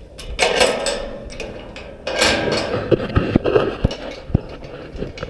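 Rattling and sharp metallic knocks and clanks at a metal cattle-pen gate and feed barrier as young heifers crowd against it, with two louder rattling bursts about half a second and two seconds in.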